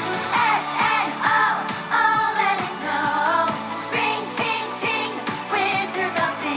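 Pop song with a sung melody over a steady beat.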